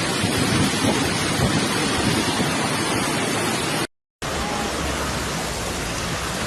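Heavy rain in a storm: a steady dense noise that drops out suddenly for a moment about four seconds in, then goes on with a deeper low rumble underneath.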